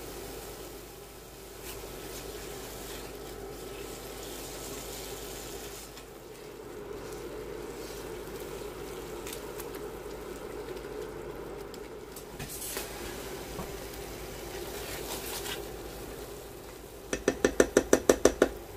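Tomato and onion mixture sizzling in a nonstick frying pan while a silicone spatula stirs and scrapes through it. Near the end comes a quick run of about ten sharp taps, around eight a second.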